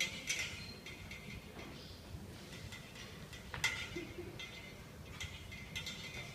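Light clinks and taps of glassware being handled as a tall glass measuring cylinder is set up. There are a handful of short, high ringing clicks, the sharpest about three and a half seconds in.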